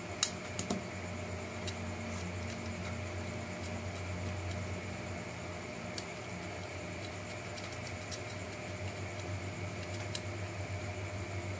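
Light clicks and taps of hard plastic RC truck parts being handled and pressed together by hand, a handful of separate clicks with the sharpest near the start, over a steady background hum.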